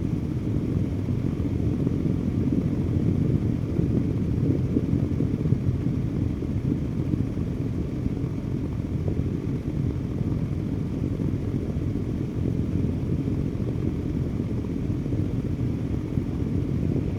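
Electric fan running, a steady low rushing noise that holds unchanged throughout.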